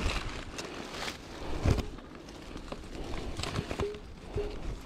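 PVC water pipe being worked through a hole bored in a wooden stake: scattered knocks and rubbing of pipe against wood, with a couple of short squeaks near the end.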